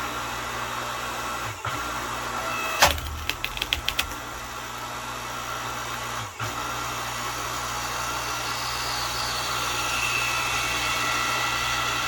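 Earthquake 5-ton electric log splitter's motor and hydraulic pump running steadily, cutting out briefly twice as the control button is let go and pressed again. About three seconds in comes a quick run of sharp cracks as the wood splits.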